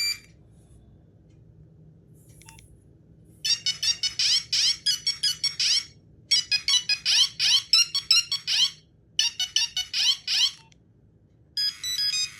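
Nokia 1100 monophonic ringtone beeping out a quick melody of short, high-pitched notes. After a few seconds of quiet, the phrase plays twice and then a shorter phrase follows. Near the end a different ringtone starts, with steadier stepped beeps.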